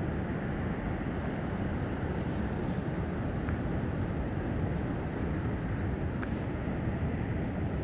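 Steady low outdoor rumble, with a couple of faint ticks about three and a half and six seconds in.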